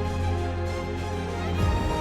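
Background music: sustained chords over a steady bass note, shifting to a new chord near the end.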